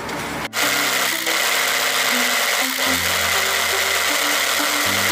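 TOTAL electric demolition breaker switched on about half a second in, its motor running steadily with a loud, even noise and a high whine.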